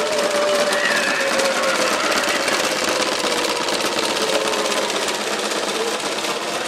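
Gemmy animatronic caged-skeleton prop running, its motor shaking the skeleton against the cage so it rattles fast and steadily, with a wavering, gliding tone over the rattle.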